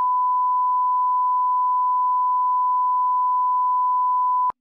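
A single steady, pure electronic beep tone held at one pitch for several seconds, then cutting off abruptly with a click near the end.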